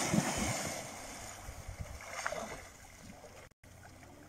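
A person running into a shallow pond, his legs churning the water into loud splashing that fades within about two seconds into gentle sloshing as he settles in the water.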